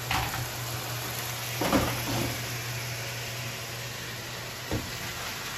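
Stainless steel pot of cooked linguine tipped into a colander in the sink, the pasta water pouring and draining, with a knock about a second and a half in and a short thump near the end, over a steady low hum.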